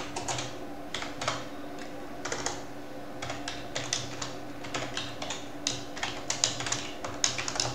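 Typing on a computer keyboard: quick, irregular runs of keystroke clicks, over a faint steady hum.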